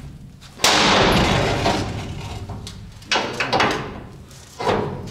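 A loud sudden bang about half a second in that dies away over a couple of seconds, followed by two shorter knocks.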